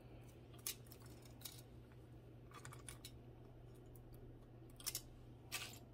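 A few faint clicks and rustles of strung beads and chain jewelry being handled, set down and picked up, over a low steady hum; the loudest clicks come near the end.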